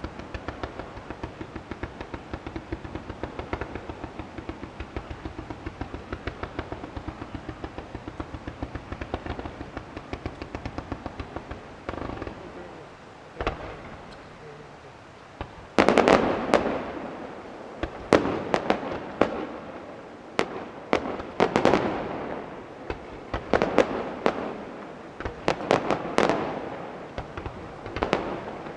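Fireworks display: a fast, even string of small pops for about twelve seconds, a single bang, then from about sixteen seconds in a series of loud aerial shell bursts, each booming and echoing.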